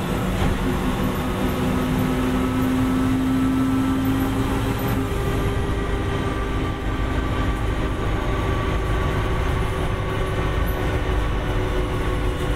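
1989 Gillig Phantom transit bus under way, its Detroit Diesel Series 50 diesel engine and driveline running steadily. A strong whine holds from about one to five seconds in.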